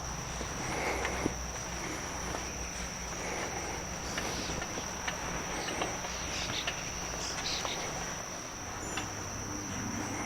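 Steady high-pitched insect chorus, one unbroken trill, with faint scattered rubbing and small knocks.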